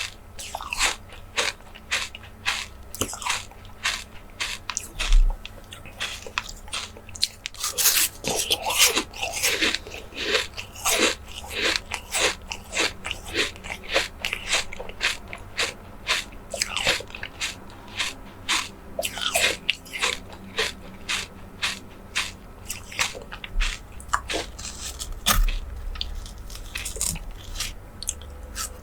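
Close-miked ASMR eating of soft jelly desserts: biting and chewing. It comes as a steady run of sharp, wet clicks and smacks, with denser crackly bursts about a third of the way in and again past the middle.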